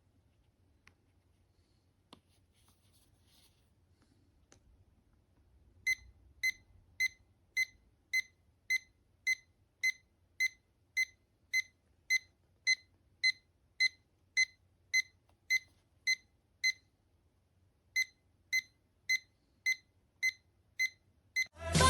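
Short, high electronic beeps from an EMS abdominal toning belt's control unit, evenly spaced a little under twice a second. A run of about twenty, a pause of just over a second, then about six more.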